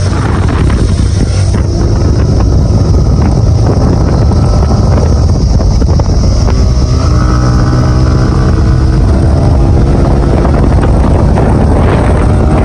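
Wind buffeting the microphone on a moving motorcycle, with the motorcycle's engine running underneath. In the second half a steady engine note comes through more clearly, fading again near the end.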